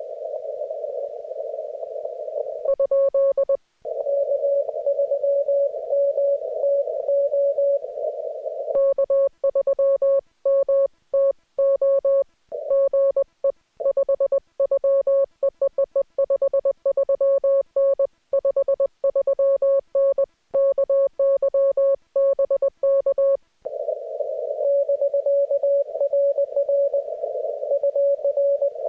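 Morse code (CW) from an amateur radio transceiver. Received code beeps sound in a narrow band of receiver hiss. About three seconds in comes a short burst of the operator's own clean keyed sidetone, and from about nine seconds to about twenty-three seconds a long run of sidetone sending, with the hiss muted while transmitting. Then received code in the hiss returns.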